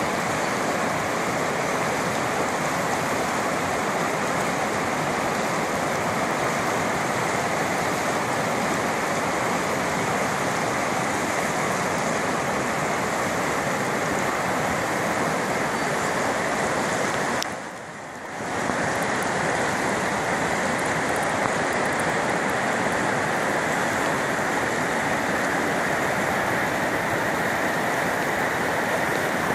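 River rapids: white water rushing steadily over rocks, a dense unbroken rush that drops away briefly about two-thirds of the way through.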